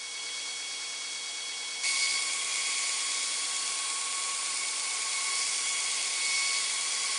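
Belt grinder running with a steady whine as a steel knife blade is ground against its abrasive belt. About two seconds in, the grinding hiss grows louder and brighter and then holds steady.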